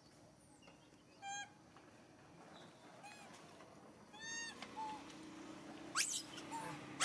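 Macaques giving short, high-pitched coo calls, a few scattered through, then a sharp rising squeal about six seconds in, the loudest sound.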